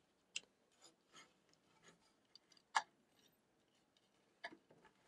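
Faint scattered clicks and taps from handling a plastic speaker housing while the driver's wire terminals are fitted, with one sharper click near the middle.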